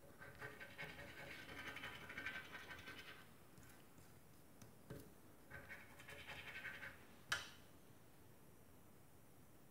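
Scratch card's coating being scraped off in two spells of brisk scratching, the first about three seconds long, the second shorter, followed by a sharp click.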